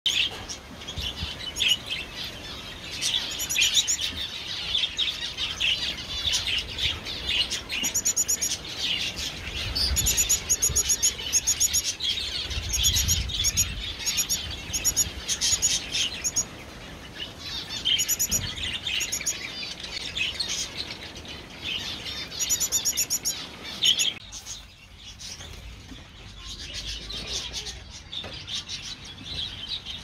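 Many small aviary finches and canaries chirping and calling together, a dense overlapping chatter of short, repeated high calls. The calling thins out and goes quieter near the end.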